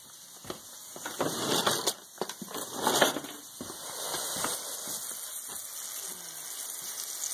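Chicken-of-the-woods mushrooms sizzling and crackling as they fry in a pan. A couple of louder rustling knocks from the phone being handled come about one and three seconds in.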